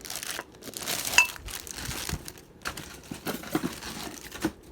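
Packing material crinkling and rustling as ceiling-fan light globes are unpacked and handled, with one sharp clink about a second in.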